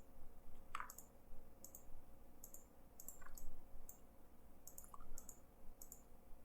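Computer mouse button clicking: about ten light, quick clicks at an uneven pace, as points of a shape are placed with a pen tool.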